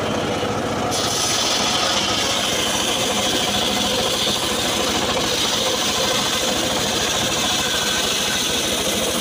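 Homemade circular sawmill blade ripping a log lengthwise, a steady high-pitched cutting hiss that starts about a second in, over the steady running of the motor that drives the saw.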